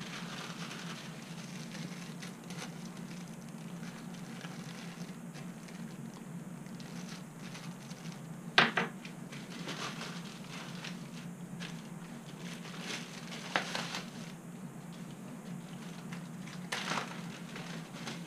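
Crinkling of a clear plastic bag and light knocks of parts set down on a workbench, over a steady low hum. A sharp knock about eight and a half seconds in is the loudest sound, with two smaller ones later.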